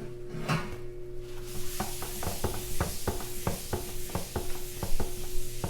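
Thick qita batter hitting a hot electric mitad, which starts sizzling about a second and a half in and keeps on. Background music with a steady beat plays over it.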